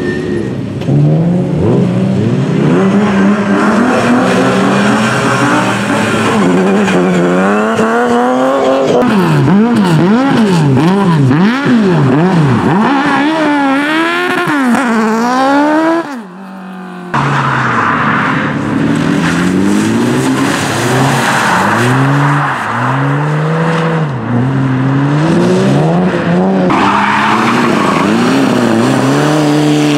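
Rally cars' engines driven hard, revving up and down in quick sweeps as the throttle is worked and gears change, with a short drop in sound about halfway through.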